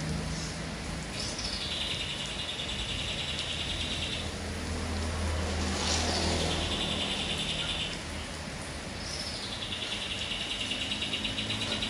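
Kapas tembak bulbul singing: three long phrases, each opening with a quick falling whistle and running into a fast, rapid-fire trill of two to three seconds, over a low steady rumble.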